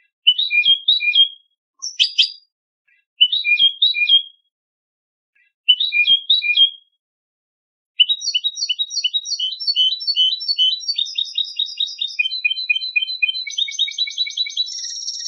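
European goldfinch singing contest-style song, the kind used as a tutor recording for young birds. Four short phrases of a few quick notes with pauses between, then about seven seconds of unbroken fast twittering, many notes a second, changing note types as it goes.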